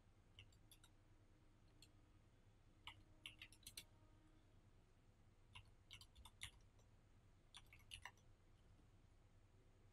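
Faint computer keyboard typing: about five short runs of keystroke clicks with pauses between them, over a faint low hum.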